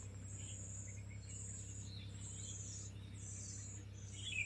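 Faint insect chirping, like crickets: high trills that come again about once a second, over a low steady hum.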